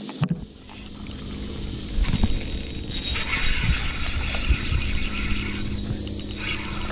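A spinning reel being cranked while a hooked bass is reeled in on a bent rod, with knocks from handling the rod and wind rumbling on the microphone. A steady hiss sets in about three seconds in and eases off near the end.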